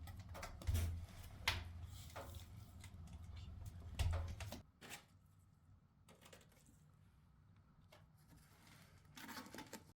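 Faint crackling of a wood fire in a fireplace insert during its first firing: scattered sharp clicks over a low rumble that drops away about halfway through.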